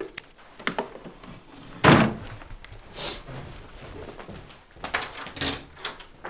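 Handling and rummaging noises: a string of knocks and clatters, a heavier thump about two seconds in, and scraping swishes.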